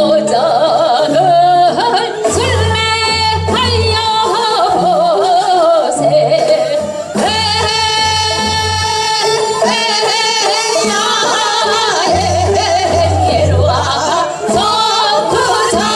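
Two women singing Seodo sori, the Korean folk singing of the northwestern provinces, in long held notes with a wide wavering vibrato, over instrumental accompaniment with a recurring low bass pulse.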